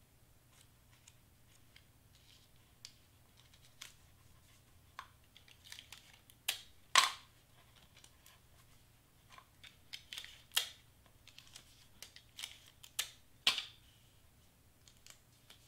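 Cardstock paper pieces being handled and fitted together by hand: faint, irregular taps, light clicks and short paper rustles, the loudest about seven seconds in.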